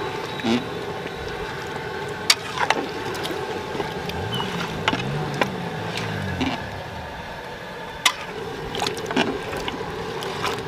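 A long metal ladle stirs through a large pot of chicken korma cooking in its own juices, making wet sloshing and scraping sounds. There are a few sharp knocks of the ladle against the pot.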